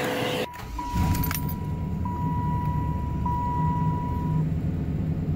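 Cadillac's dashboard warning chime sounding as a steady tone, struck again about every second and a quarter and stopping about four seconds in, over the low hum of the car's engine idling as heard in the cabin. A click near the end.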